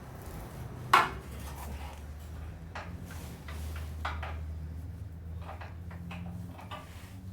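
Metal hand tools, wrench and socket, clinking and knocking against metal: one sharp clank about a second in, then scattered lighter clinks, over a low steady hum.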